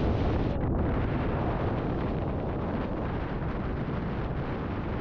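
Strong wind buffeting the microphone: a dense, steady low rumble.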